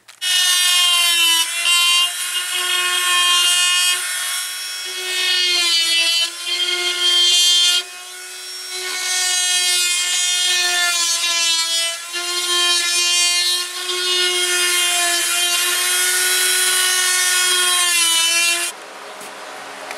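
Oscillating multi-tool cutting into drywall: a steady buzz that dips briefly several times, then stops near the end.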